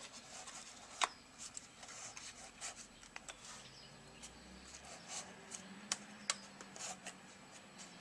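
Faint handling sounds of hands settling a recone kit's cone and voice coil into a 12-inch subwoofer basket and lining up its leads: light rubbing with scattered small clicks, the sharpest about a second in and twice close together around six seconds.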